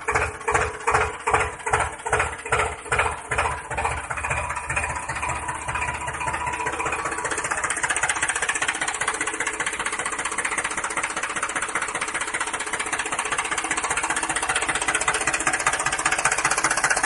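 Tractor engine starting up: slow, separate chugs about two and a half a second quicken over the first five seconds or so into a steady, fast-running engine.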